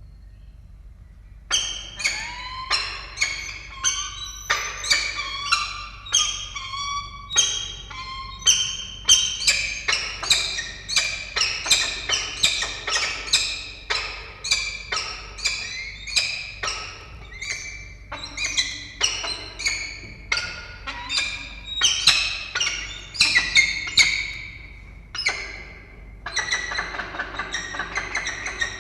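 Peregrine falcons calling at the nest, a rapid series of sharp, harsh repeated calls, about one to two a second, with a short pause at the start. The calling is typical of a food pass when the male brings prey to the incubating female.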